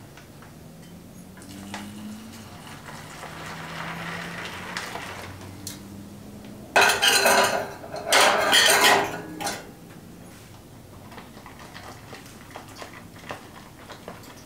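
Hot water poured from a metal mug into a foil-lined freeze-dried meal pouch for a few seconds, with a soft hiss. Then the foil pouch crinkles loudly in two bursts as it is handled, about seven and eight seconds in.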